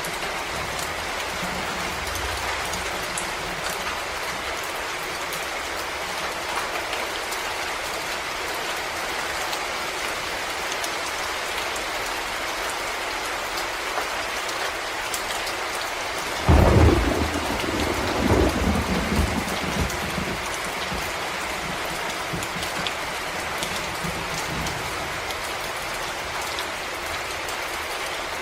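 Steady rain falling on forest leaves and ground. About halfway through, a sudden peal of thunder starts loud and rumbles away over about three seconds.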